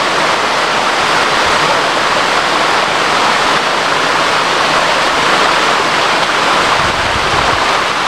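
Waterfall cascade: water rushing over rock ledges close by, a loud, steady rush.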